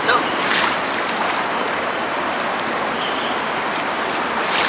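Steady rush of shallow flowing river water, with a few brief splashes as a wet cast net is lifted out of it.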